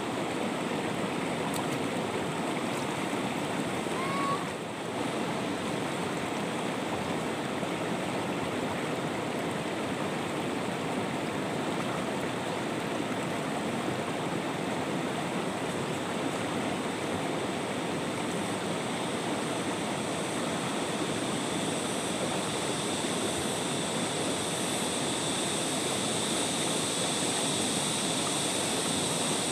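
Shallow river rushing over rocks: a steady, unbroken sound of flowing water.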